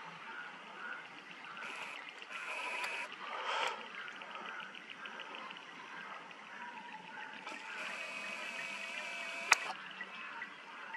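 Wild animal alarm calls ringing out in short pitched bouts over a fast, steady ticking, with one sharp click about nine and a half seconds in.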